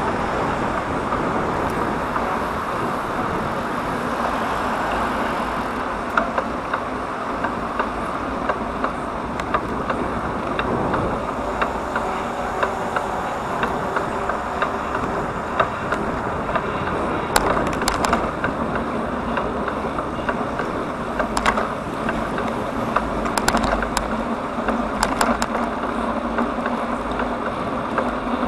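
Bicycle riding on a road: steady tyre-on-road and wind noise, with scattered sharp clicks and rattles from about six seconds in.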